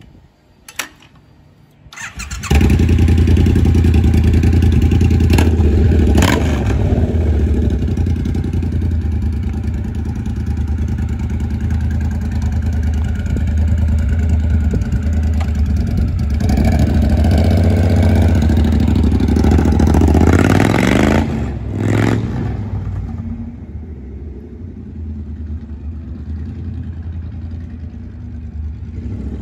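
Triumph Bonneville Bobber's 1200 cc parallel-twin, breathing through short drag pipes and a de-catted X-pipe, cranks and fires about two seconds in, then runs loud and deep with a few throttle blips. Near the end it revs up as the bike rides off, and its sound fades into the distance.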